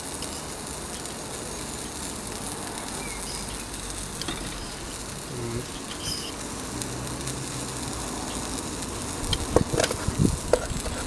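Steak sizzling as it cooks on a Firebox stove, a steady hiss, with a few sharp clicks and knocks near the end.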